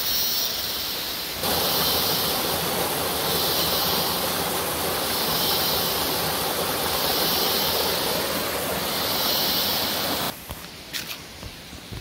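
Rushing water of a small mountain stream cascading over mossy boulders: a loud, steady hiss of white water. It cuts in about a second in and drops away near the end to quieter outdoor sound with a few light rustles.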